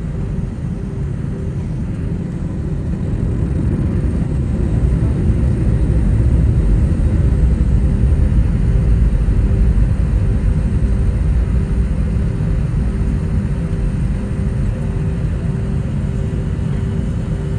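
Steady low rumble of jet engines and the taxiing airliner, heard inside the cabin, with a faint steady hum. The rumble swells from about three seconds in to its loudest around eight seconds, as a wide-body jet passes close on the runway, then eases off.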